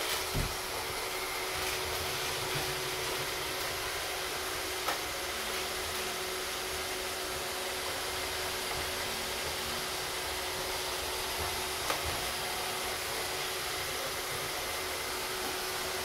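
Three iRobot Roomba robot vacuums, a 561, a 620 and an early Roomba Pro, running together: a steady whir of their motors and brushes, with a few brief knocks, the first just after the start, one about five seconds in, and one near twelve seconds.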